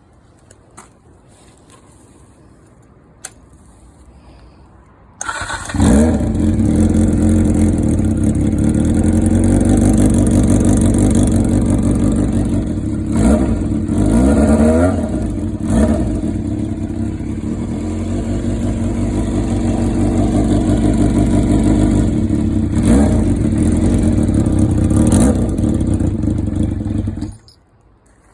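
Honda CBX400F inline-four motorcycle engine breathing through a modified Moriwaki Foresight exhaust with its silencer baffle fitted: it starts about five seconds in, idles loudly, is revved a few times around the middle and twice more later, then is switched off abruptly near the end.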